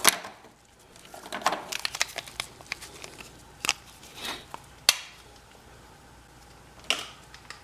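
Scattered light clicks and knocks of plastic sink drain parts being handled and fitted together, with the sharpest knock about five seconds in.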